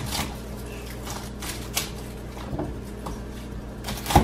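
Chef's knife slicing garlic cloves on a plastic cutting board: a few irregular knocks of the blade against the board, the loudest near the end.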